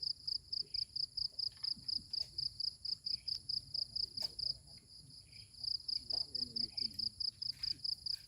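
An insect chirping in a fast, even, high-pitched pulse of about five chirps a second, with a brief pause midway.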